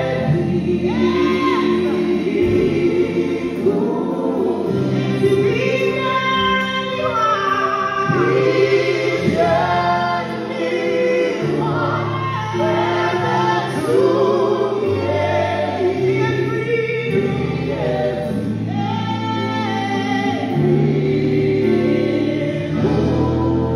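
Live gospel worship song: a small group of singers, two women and a man, sing together into microphones over a band with keyboard, its low held chords changing every couple of seconds.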